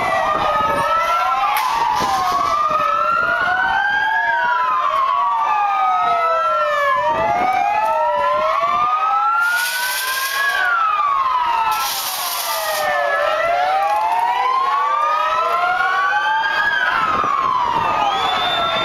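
Several police van sirens wailing at once, each slowly rising and falling in pitch, out of step with one another.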